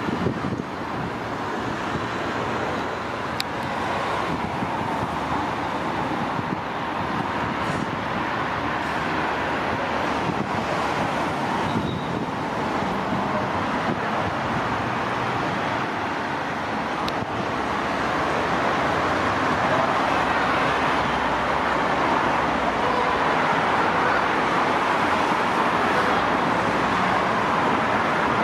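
Steady hum of distant road traffic, growing slightly louder about two-thirds of the way through.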